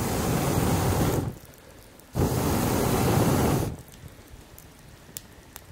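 A hand pull saw cutting through a wooden log in two long, rasping strokes, each about a second and a half.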